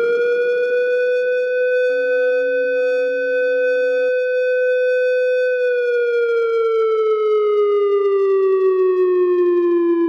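Wail tone of the Alarm Red siren used on US military bases, the signal that a sustained, complex or coordinated attack has been detected. One loud steady tone held at a high pitch, then sliding slowly down in pitch from a little past halfway.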